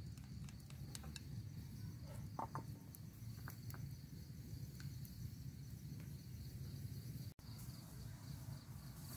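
Crickets chirping steadily in a fast, even pulse. A few light taps come in the first few seconds as chopsticks stir food on a plate.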